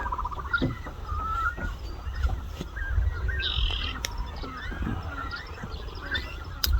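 Birds calling: many short, wavering chirps over a steady low rumble.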